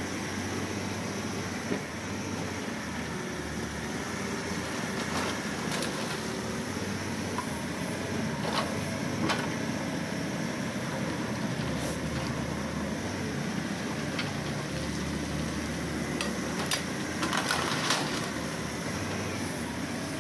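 Diesel engine of a Halla 130 wheel excavator running steadily as it digs and loads concrete rubble. Scattered clanks and knocks from the bucket and broken concrete cut through, with a cluster of them near the end.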